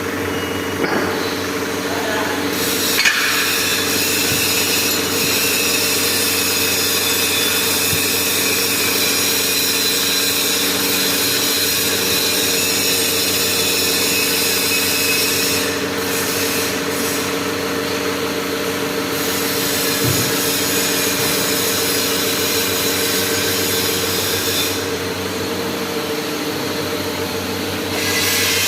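Hydraulic press's pump unit running steadily with a hum and whine, the ram being worked during a test run. A brighter hiss comes in about three seconds in and drops away briefly twice, around the middle and again near the end.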